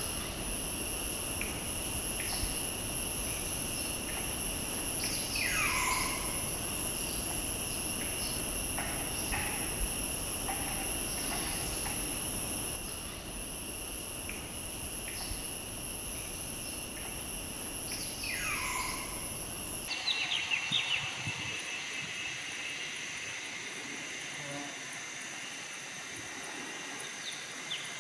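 Forest ambience: insects keep up a steady high-pitched whine, with scattered short chirps and a bird's falling call heard twice. A low rumble under the first part stops about two-thirds of the way through, where the ambience changes.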